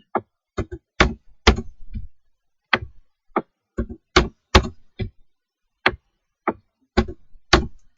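Irregular series of sharp clicks from the keys and mouse buttons of a computer, about two dozen in all, several in quick pairs.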